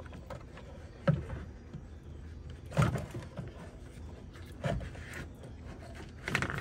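Plastic coolant expansion tank being handled and worked loose in a Sprinter van's engine bay: a few light knocks and clunks, one every second or two, with a quicker cluster near the end.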